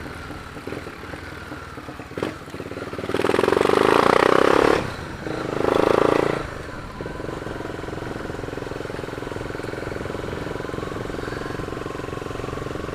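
Motorcycle engine running, with two loud surges of engine sound about three and six seconds in, then settling into a steady idle.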